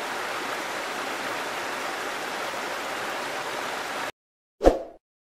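Stream rushing over rocks, a steady hiss of running water that cuts off abruptly about four seconds in. Shortly after, a single short, loud pop.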